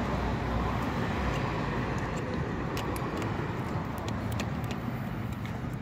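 Steady background noise of road traffic, with a low rumble and a few faint light clicks.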